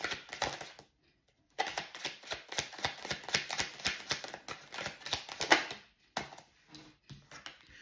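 A deck of tarot cards being shuffled by hand: dense runs of rapid clicks and slaps, with a short break about a second in and a thinner stretch near the end.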